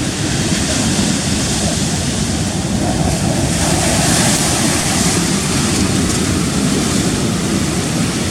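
Rough-sea surf breaking and washing in, a loud continuous rumbling wash with wind buffeting the microphone; a wave breaks with a louder hiss about three and a half seconds in.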